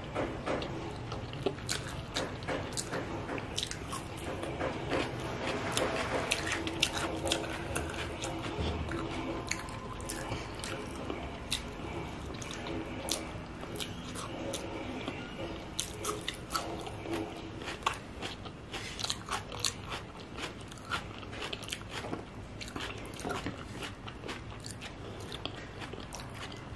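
Close-miked eating: a person chewing biryani eaten by hand, with frequent small wet mouth clicks and smacks.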